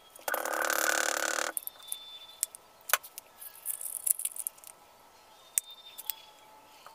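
A frog's pulsed croaking call, about a second long, shortly after the start. Faint scattered clicks and crackles follow, from the plastic cup and wrapping being handled.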